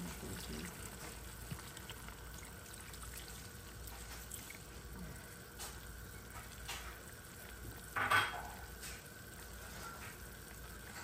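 Pork-and-liver igado stew simmering in a wide pan on a gas burner: a faint, steady sizzle with a few small pops. There is one louder, brief sputter about eight seconds in.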